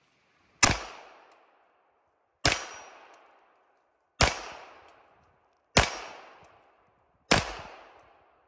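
Five shots from a compensated Canik TP9SFX 9mm pistol, fired slowly about one and a half to two seconds apart. Each sharp report trails off in about a second of echo.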